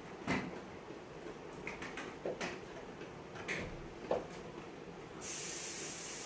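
Several light clicks and knocks as parts of an air-conditioner unit are handled. About five seconds in, a steady high hiss starts suddenly.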